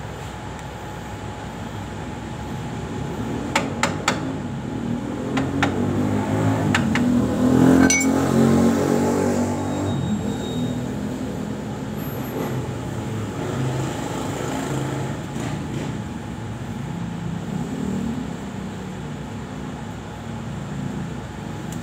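A motor vehicle's engine rumbling, swelling to its loudest about eight seconds in and then fading away. A few sharp metallic clinks come before the peak.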